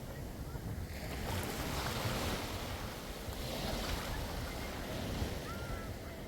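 Waves washing onto the shore, swelling and falling back, with wind buffeting the microphone.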